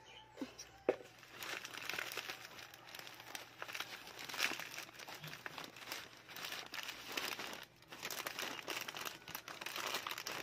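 Crinkling and rustling of a flower bouquet's wrapping as it is handled and pulled apart, in irregular crackly bursts, with one sharp click about a second in.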